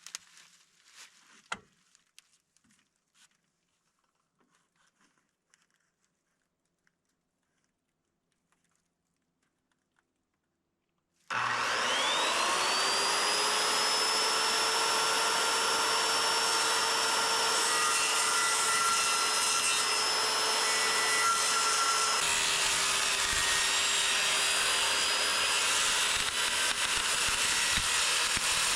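Near silence with a few faint clicks, then a power tool's motor starts suddenly about eleven seconds in. It spins up with a rising whine and then runs steadily with a rough noise, as when cutting roofing material.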